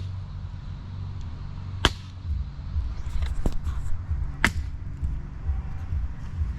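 Small axe striking damp firewood: sharp chopping blows, two loud ones about two and a half seconds apart with a couple of fainter knocks between them.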